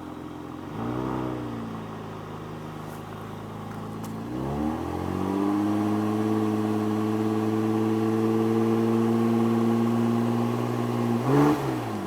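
Saab 9-3 Aero's turbocharged 2.8-litre V6 being revved while stationary: a short blip about a second in, then the revs climb and are held steady at a raised speed for about five seconds, with a quick blip before dropping back near the end.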